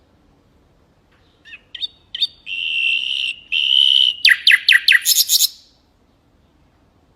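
Mangrove whistler singing one phrase: a few short high notes, two long steady whistles, then a quick run of about half a dozen falling notes that ends in a fast, dense burst.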